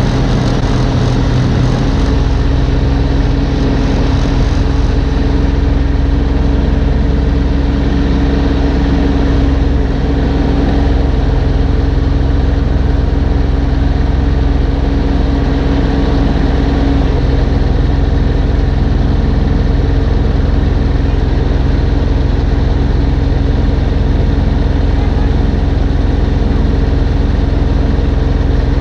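Gas snowblower engine running steadily at close range, with a small change in its low note about two seconds in.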